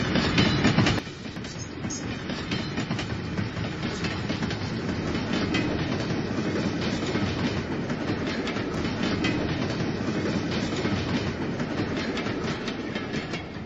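Electric model diesel locomotives running on plastic track: a steady rattle of wheels and motors with many rapid clicks over the track joints. Loudest in the first second as one locomotive passes close, then steady.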